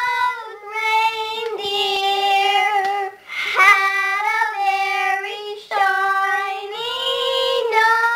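Young children singing a song, holding long notes of about a second each with brief breaks between them.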